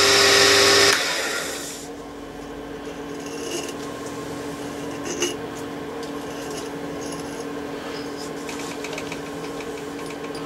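Small workshop machine motor running, switched off about a second in and spinning down. After that a steady low hum remains, with a few light clicks and a quick run of ticks near the end.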